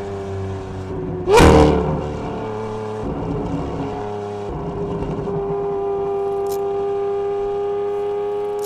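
Lamborghini Aventador SV's naturally aspirated V12 through a Gintani aftermarket exhaust, running at a steady engine speed. About a second and a half in comes a sudden loud burst where the pitch briefly jumps up, then the engine settles back to an even note.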